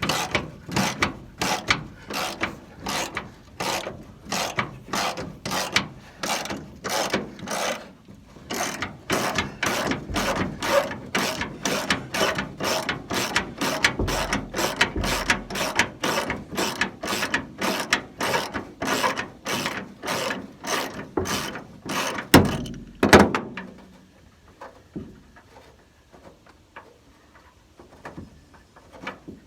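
Hand socket ratchet with a T55 Torx bit backing out a 2009 Ford Ranger bed bolt, clicking in an even rhythm of about two strokes a second. The ratcheting stops with a couple of louder knocks about 23 seconds in.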